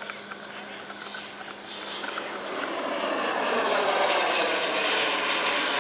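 Radio-controlled model jet's turbine engine heard in flight, a rushing jet noise that grows steadily louder from about two seconds in as the plane comes closer.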